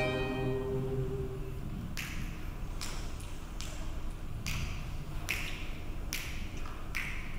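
Sharp finger snaps at a steady tempo, about one every 0.8 seconds, counting in an a cappella group before the song. They follow a held starting pitch that fades out in the first second or so.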